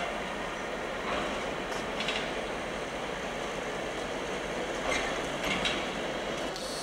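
ÖBB class 1142 electric locomotive rolling slowly on a shunting move: a steady rumble of wheels on rail, with a few faint clicks as the wheels pass rail joints.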